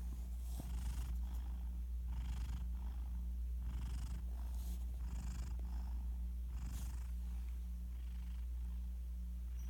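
Sleeping domestic cat breathing with a soft, snore-like rumble on its breaths; the uploader calls it not full-blown snoring like a person's, but close. The breaths come slow and regular, every second or so, over a steady low hum.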